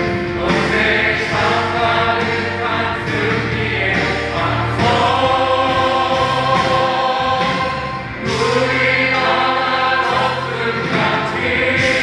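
Live worship singing: a praise team and pastor singing a Korean gospel praise song together into microphones, in long held notes over a steady low backing.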